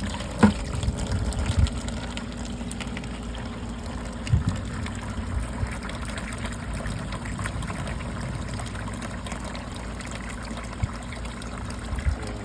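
Air-conditioner condensate water running out into a rain barrel: a steady trickle and splash, with a few low bumps about half a second in and again about four seconds in.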